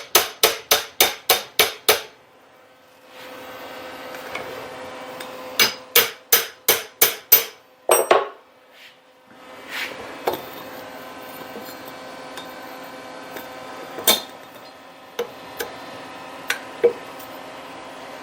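Hammer tapping on a Delta drill press's chuck to knock it loose: two quick runs of ringing metal taps at about three a second, one in the first two seconds and another about six seconds in. A few single knocks and clinks follow over a faint steady hum.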